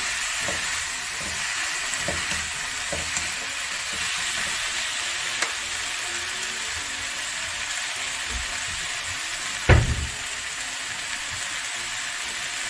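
Sliced vegetables sizzling in a frying pan as they are stirred with a wooden spatula, with small scraping knocks and one louder thump about ten seconds in.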